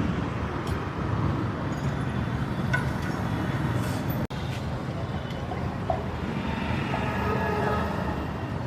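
Steady rumble of passing road traffic, with faint voices in the background; the sound drops out for an instant about four seconds in.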